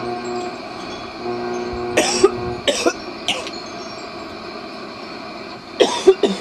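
A person coughing in short bursts: a few coughs about two to three and a half seconds in, and another cluster near the end. Under the first couple of seconds run steady tones from a shortwave radio tuned through the bands.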